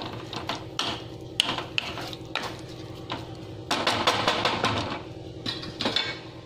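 Wooden spatula knocking and scraping against a pan while stirring chopped tomatoes and onions: irregular taps, with a denser stretch of scraping about four seconds in.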